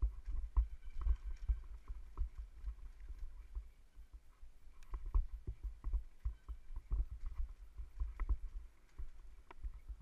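Downhill mountain bike rattling over a rough dirt trail at speed, heard from the rider's helmet: an uneven low rumble with many sharp knocks and clatters as the bike hits bumps.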